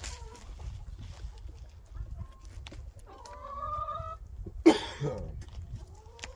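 Domestic hens clucking softly, with a longer rising call about three seconds in. A sudden, brief loud sound comes about a second later.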